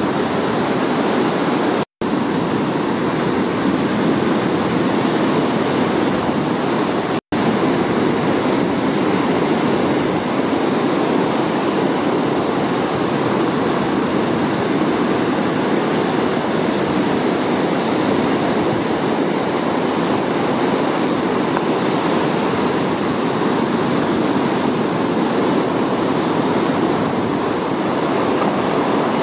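Ocean surf breaking on a beach: a steady, loud wash of waves. It is broken by two momentary gaps of silence, about two seconds and seven seconds in.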